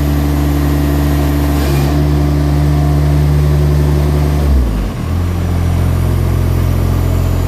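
John Deere X495 tractor's three-cylinder diesel engine running steadily. About two-thirds of the way through its note dips briefly, then it settles into a different steady run at a lower speed.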